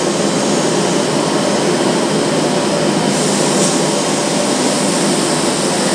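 Altendorf F5 edge banding machine running steadily as panels feed through it: a loud, even machine hum with a high hiss. The hiss grows a little brighter about three seconds in.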